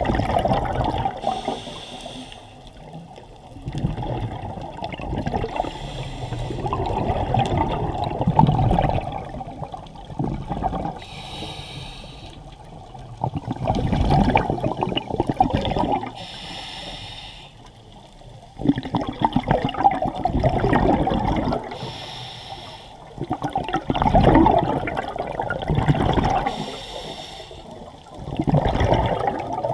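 Scuba diver breathing through a regulator underwater: a short hiss on each inhale, then a longer bubbling rumble of exhaled air. The cycle repeats about every five seconds.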